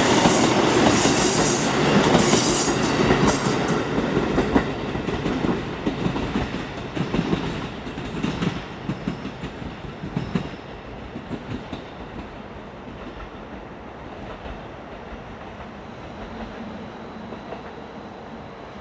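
Two-car KiHa 40 diesel railcar train passing close by, its wheels clattering over the rail joints, then moving away: the clatter fades to scattered clicks and dies out about two-thirds of the way through.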